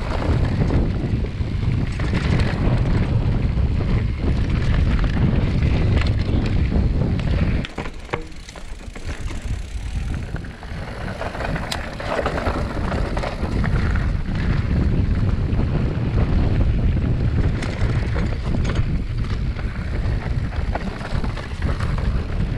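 Mountain bike riding down a trail, its tyres and frame clattering over the ground, with heavy wind rumble on the microphone. The rumble eases for a couple of seconds about eight seconds in, then builds again.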